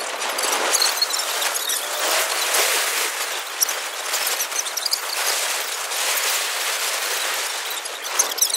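Wind rushing over a phone microphone on a moving motorcycle: a steady, loud rush broken by frequent crackling buffets.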